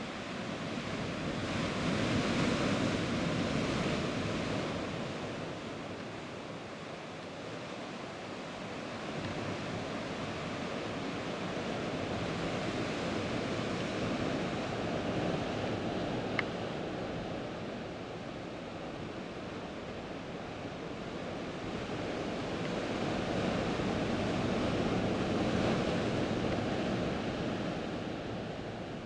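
Rough sea surf breaking and churning against volcanic rocks, a steady rush that swells loudest a couple of seconds in and again near the end.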